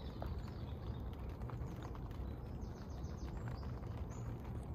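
Small birds chirping in short quick runs of high notes, loudest around the middle and near the end, over a low steady rumble.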